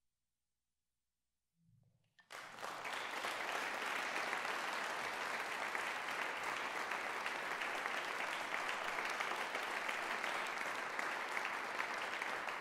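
Near silence for about two seconds, then an audience breaks into steady applause.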